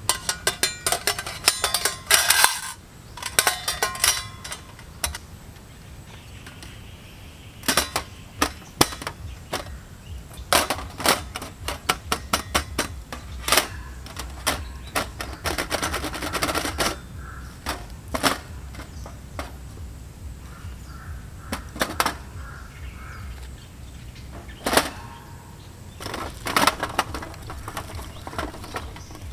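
Camp cooking gear being handled: clusters of sharp clicks, taps and knocks, with dense rattling runs near the start and in the middle, and single knocks later.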